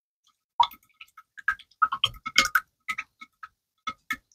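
Plastic spoon clinking and tapping against a glass bowl while stirring liquid slime glue: a quick, irregular run of light clicks, busiest in the middle.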